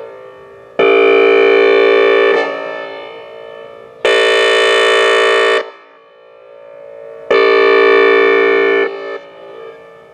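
Outdoor warning siren sounding a tone signal in three blasts of about a second and a half each. The middle blast is brighter than the other two, and each dies away in echo before the next.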